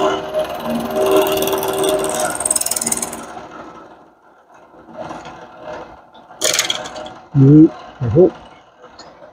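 Bridgeport milling machine's end mill cutting into an orange plastic toy-gun body, a steady whine over cutting noise that dies away after about three seconds. Near the end come two short, loud sounds that slide up and down in pitch, well under a second apart.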